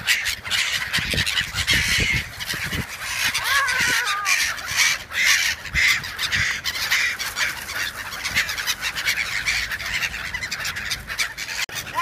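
A large flock of black-headed gulls calling constantly in overlapping harsh cries as they mob someone feeding them by hand, with many close, sharp wing flaps mixed in.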